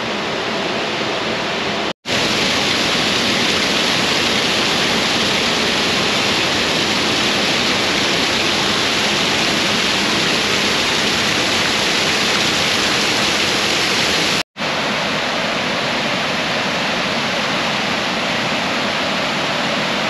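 Waterfall on Shoal Creek pouring over a rock ledge: a loud, steady rush of falling water. It drops out for a split second twice, about two seconds in and again near three quarters of the way through.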